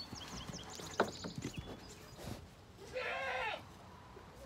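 A goat bleats once, a short call that rises and falls, about three seconds in, after a few faint knocks and rustles.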